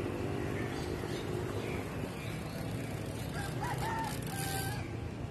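A rooster crowing once, starting about three seconds in and ending on a long held note, over a steady low outdoor rumble.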